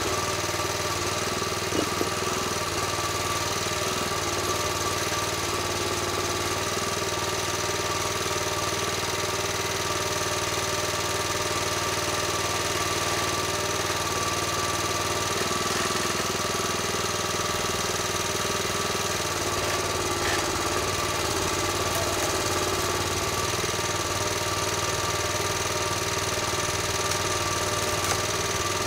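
Engine of a small Kranman 1750 4WD forest machine running steadily while its hydraulic crane moves the harvester head. The engine note shifts a little from about 15 to 19 seconds in.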